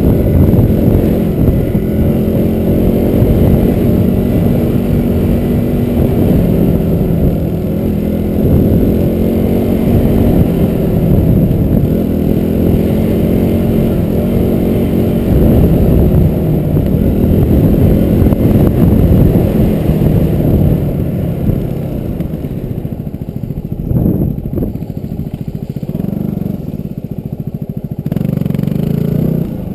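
Motorcycle engine running with revs rising and falling as it rides a rutted forest track, easing off and running quieter over the last several seconds.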